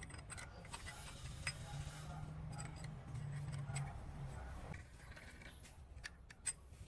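Light metallic clicks and clinks of small metal parts and tools being handled, over a low steady hum. One sharp click stands out near the end.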